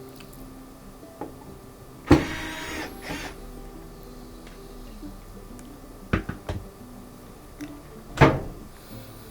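A cordless screwdriver's small motor whirring in short runs as it backs screws out of a washing machine's front panel. Loud knocks or clatters come about two, six and eight seconds in.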